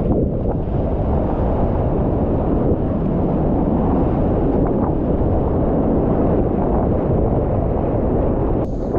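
Wind buffeting and surf rushing on a kayak-mounted action camera's microphone as a surf kayak rides through breaking whitewater, a loud, steady, low rumble.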